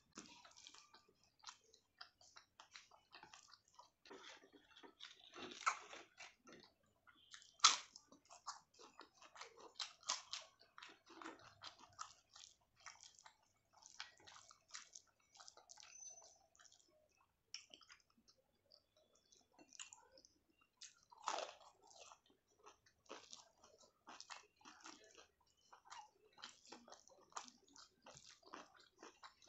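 A person chewing and biting food close to the microphone: a steady run of small eating sounds, with a few louder bites about six and eight seconds in and again near twenty-one seconds.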